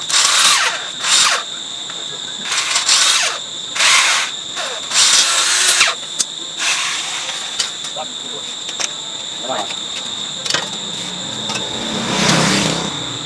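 Handheld power drill whirring in short bursts on the hub of a rotary tiller's tines, about five times in the first six seconds and once more near the end, over a steady high-pitched hum.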